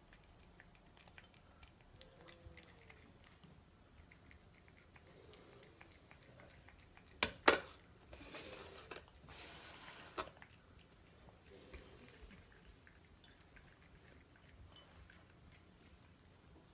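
Cats eating dry kibble from bowls: faint crunching and small clicks of chewing throughout. About seven seconds in come a couple of sharp knocks, the loudest sounds, followed by a brief rustling hiss.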